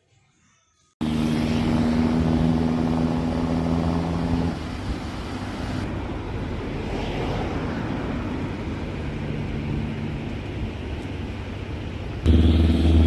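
Motor vehicle engine running, a steady hum over a noisy rush; a louder, deeper engine sound comes in near the end.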